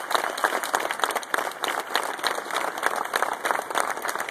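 Large audience applauding: many hands clapping at once in a dense, steady patter.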